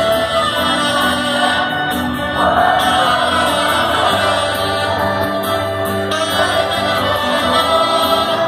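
Live folk-rock band playing with saxophone, fiddle, accordion and acoustic guitar, with several voices singing together.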